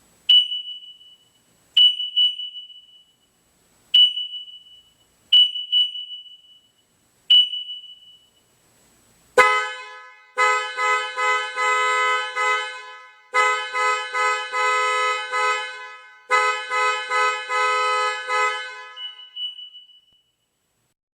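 Car alarm going off. First come a few short, high single chirps a second or two apart. About nine seconds in, after a sharp click, a loud horn-like tone pulses rapidly in three runs with brief gaps, then dies away.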